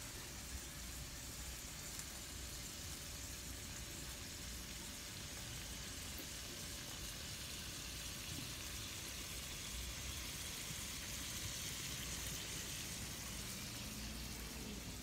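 Ground beef, corn and a fried egg sizzling steadily on a hot Blackstone flat-top griddle, a faint even hiss.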